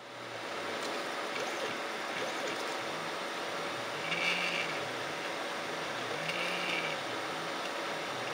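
3D printer's stepper motors running, with a low hum that keeps rising and falling in pitch as the moves speed up and slow down, and a brief higher whine about every two seconds.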